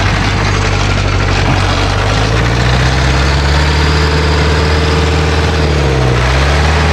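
Off-road jeep's engine running loudly. Its pitch rises about two seconds in, then dips briefly and climbs again near the end.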